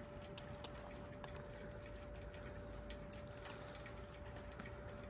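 Faint background with many light, irregular ticks over a faint steady hum.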